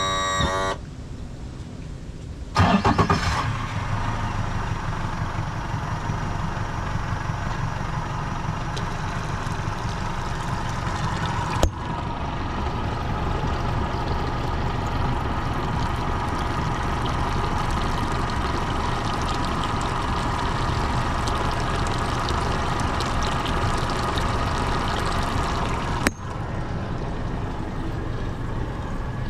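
Yamaha FR23 Active Sedan boat's engine starting with a loud burst about two and a half seconds in, then settling into a steady idle. Two sharp clicks break the running sound, one near the middle and one near the end.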